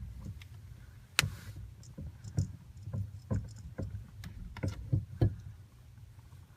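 Irregular light knocks and clicks of a steering wheel being handled and worked onto the steering column while it is lined up, about a dozen over a few seconds with a sharper one about a second in, over a low steady hum.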